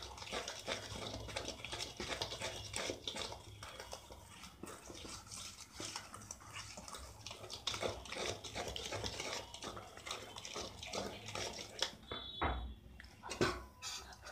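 A utensil stirring thick chocolate cake batter in a steel mixing bowl: a quick, irregular run of scrapes and clinks against the metal, with a couple of louder knocks near the end.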